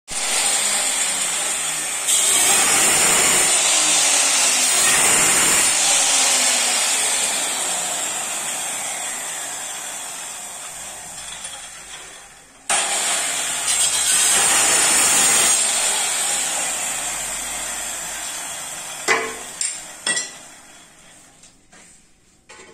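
Handheld electric tile cutter with a small disc cutting a ceramic tile: a loud grinding whine with a high steady tone. It cuts off sharply about halfway, starts again, and fades away, followed by three sharp knocks near the end.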